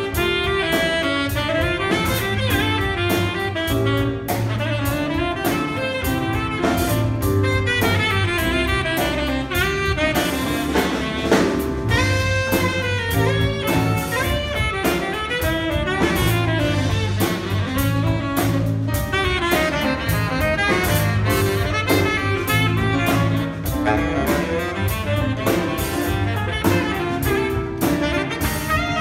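A jazz big band playing live: saxophones and brass over a drum kit and a steady bass line.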